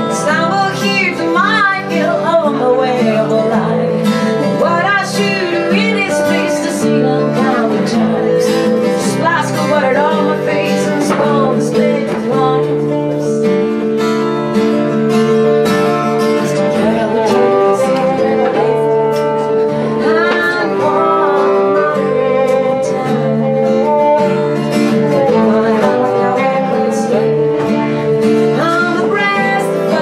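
Live acoustic folk-rock: acoustic guitars playing, with a woman singing over them.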